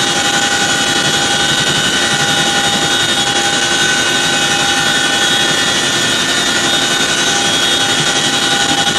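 Boeing CH-47 Chinook twin-turbine, tandem-rotor helicopter heard from inside its cabin with the rear ramp open to the water: a loud, steady rush of rotor and engine noise with a high turbine whine held on several steady tones.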